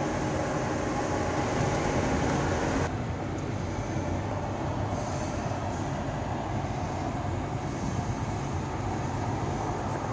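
Steady hum and whir of a parked electric drayage tractor's electrically driven auxiliaries (air compressor, hydraulic pump, air conditioning), heard in the cab. A pitched whine in the mix cuts off suddenly about three seconds in, leaving a lower, steady hum.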